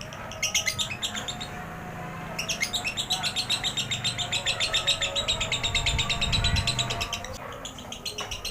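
Lovebird ngekek: a fast chattering trill of sharp repeated chirps, a short run about half a second in and then a long one lasting about five seconds. This long ngekek is the kind of song played to other lovebirds to set them singing.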